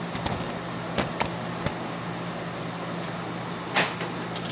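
Steady hum of the powered slot machine and workshop, with a few sharp clicks about a second in and a louder clack near the end as the man handles the open cabinet.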